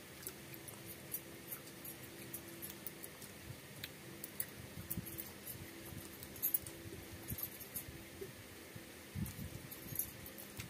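Eating by hand from a banana leaf: fingers squishing and mixing rice with curry, and mouths chewing, making a scatter of small wet clicks and smacks, densest around the middle, with a few soft low thuds near the end.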